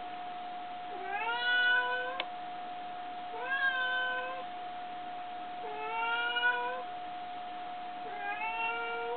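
Grey tabby domestic cat meowing four times, long drawn-out calls about a second each that rise at the start and then hold; the owner takes them for the cat appealing for something. A steady faint high hum runs underneath.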